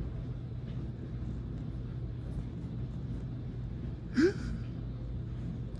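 Steady low background hum, with one short rising vocal sound about four seconds in.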